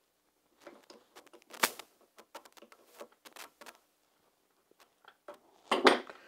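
Small metallic clicks and knocks as a small jack under the locomotive's axle is handled and tightened up, with one sharper click about a second and a half in and a louder clatter near the end.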